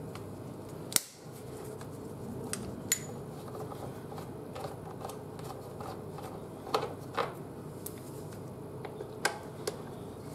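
Scattered sharp clicks and taps of a hand tool working the screws of a motorcycle's front mudguard, over steady background noise.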